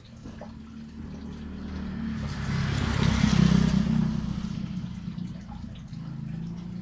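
A motor vehicle passing by on a wet road. Its engine hum and the hiss of its tyres on the wet surface swell to a peak about halfway through, then fade away.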